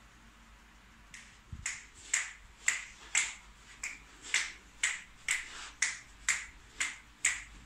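Finger snapping in a steady rhythm of about two snaps a second, starting about a second in.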